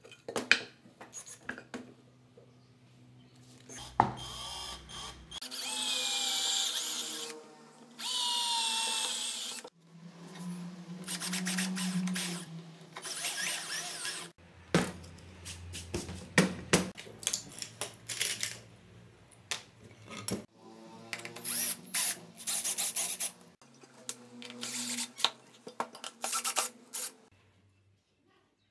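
Cordless drill running in several bursts of a few seconds each, boring into wood, its whine drifting in pitch as it loads and unloads. Sharp knocks and clatter from wooden pieces being handled come between the runs.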